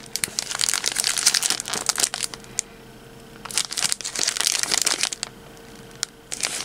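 Clear plastic wrapper of an individually packaged sponge cake crinkling as it is lifted out and handled, in two bouts with a pause of about a second between them.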